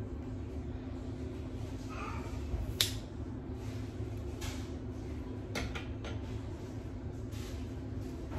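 Scissors snipping through a wet ponytail: a few short sharp clicks, the loudest about three seconds in and another a little before six seconds, over a steady low hum.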